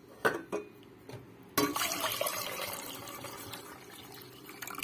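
Two light metal clinks, then water poured from a kettle into a steel pot of whisked yogurt mixture: the pour starts suddenly about a second and a half in and slowly tapers off.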